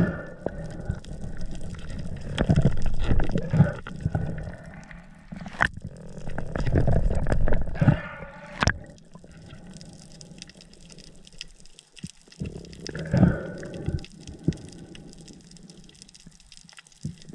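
Water sloshing and rushing against an underwater camera as a freediver moves through the water and breaks the surface, coming in uneven surges. A few sharp clicks cut through.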